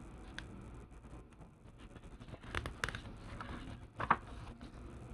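A paper catalogue's pages being handled: a few brief rustles and taps, the loudest about four seconds in.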